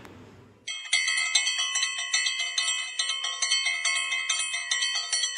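Outro jingle of bright bell chimes, starting under a second in, struck about three times a second with each ring carrying over into the next.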